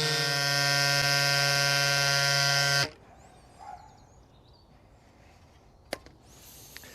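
Rock Bros mini electric pump's motor buzzing steadily as it inflates a tubeless bicycle tyre, then cutting off suddenly about three seconds in. A single sharp click follows near the end.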